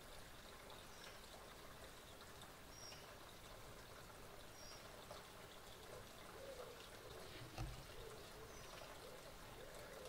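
Faint garden ambience, an even hiss, with a few faint, short, high bird chirps spaced through it and a single low thump about three-quarters of the way in.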